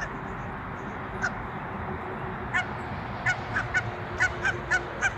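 Barnacle geese honking: one short call about a second in, then a quick run of about eight short, high honks over the second half.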